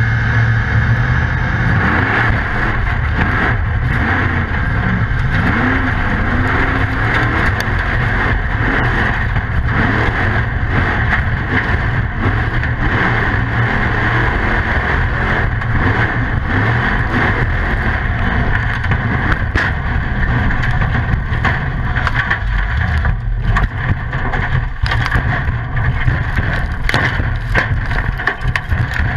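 Formula Off Road buggy's engine running hard at high revs, heard from inside the cockpit. In the last part, knocks and bangs come thick and fast as the car tips over and starts to roll.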